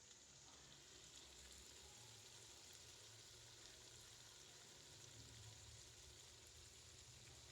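Faint, steady sizzling of food frying in a pan, with light crackles over a low hum.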